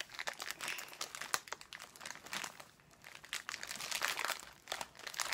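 Clear plastic packaging bag crinkling and crackling as hands pull and twist at it, trying to tear it open without scissors. The crackles come thick and irregular, easing off briefly about halfway through.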